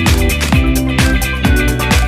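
Background music with a steady electronic dance beat: a punchy kick drum about twice a second under sustained bass and melody notes.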